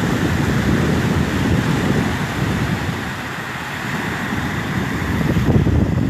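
Wind buffeting the phone's microphone in uneven gusts, over small surf washing up on a sandy beach.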